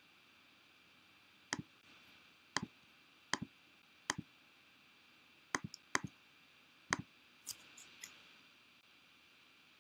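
Computer mouse clicking: about nine sharp clicks, most in quick pairs, coming roughly once a second, over faint room tone.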